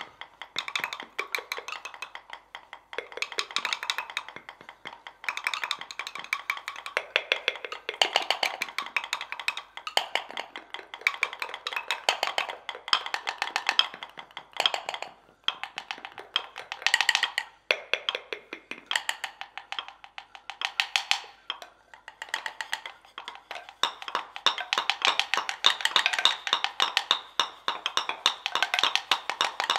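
An ensemble of seven mortars and pestles played as percussion: rapid, dense tapping and clicking of pestles against the mortars, in phrases broken by a couple of short pauses.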